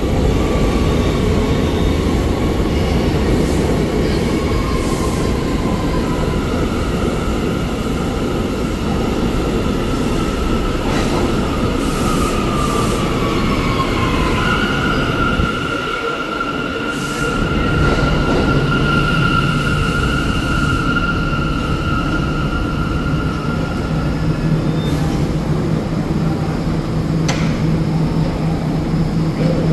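R179 subway train pulling into an underground station and slowing to a stop: a steady rumble with high whining tones that slide down in pitch as it slows. About halfway through, the rumble gives way to a steady low hum with a high tone above it as the train stands at the platform.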